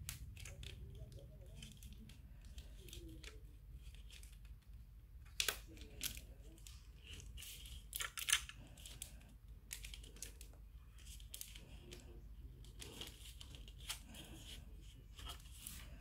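Plastic parts of a Blast Waves K7 air-conditioner deflector being handled and fitted together: the perforated plastic sheet rustles and the plastic bracket gives scattered light clicks. The loudest snaps come about five and a half seconds in and again around eight seconds.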